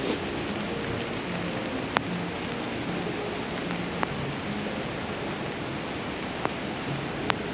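Steady rain hiss, with four sharp taps of drops striking close by.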